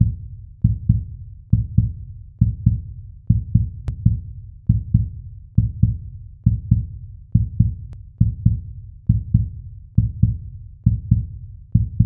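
Outro music built on a deep, heartbeat-like bass pulse: a double thump repeating about once a second.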